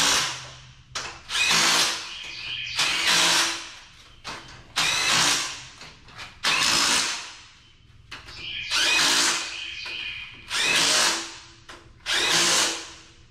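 Cordless drill run in eight short bursts, each under a second, about every one and a half to two seconds, driving fasteners on an engine block.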